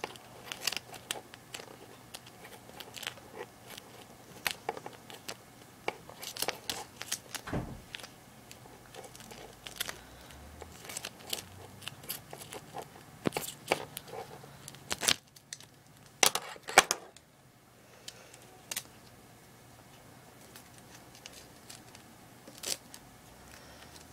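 Scissors cutting lengthwise through a strip of duct tape: an irregular run of sharp snips and crinkles, busiest and loudest about two-thirds of the way through, then only a few scattered snips.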